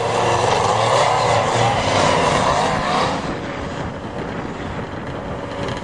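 Yamaha 650 motorcycle engine in a dune buggy revving under load, its pitch wavering up and down for about three seconds before it falls back to a quieter run.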